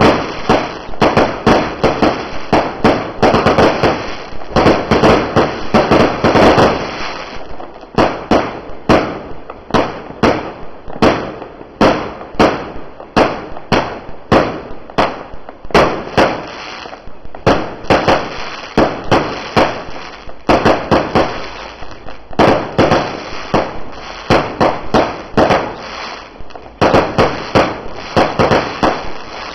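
Low-noise 1.4G consumer fireworks firing shot after shot, about two sharp pops a second without a break, each launch followed by its burst.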